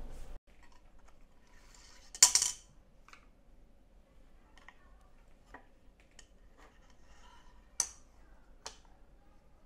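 Small handling noises as a bobbin of hand-spun yarn is fitted onto the metal pin of a wooden boat shuttle: a brief loud burst of noise about two seconds in, faint ticks, and two sharp clicks near the end.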